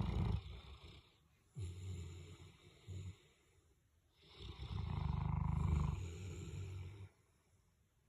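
Boerboel mastiff snoring in its sleep: a run of low, fluttering snores with quiet gaps between. The longest snore comes in the second half and lasts nearly three seconds.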